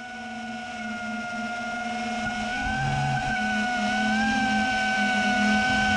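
A 3-inch FPV quadcopter's motors and propellers whining steadily. The whine fades in and grows louder, and its pitch wavers slightly now and then as the throttle shifts.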